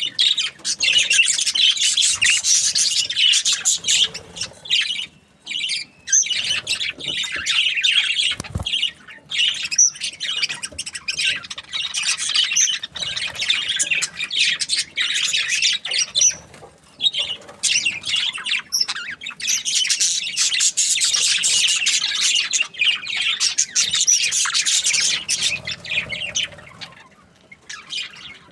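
A group of budgerigars chattering, with rapid warbling chirps and squawks that pause briefly a few times. One dull knock about a third of the way in.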